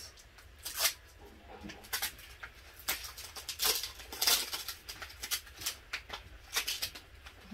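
Clear plastic packaging crinkling and crackling in the hands as a lip gloss is unwrapped, in short irregular crackles about once a second.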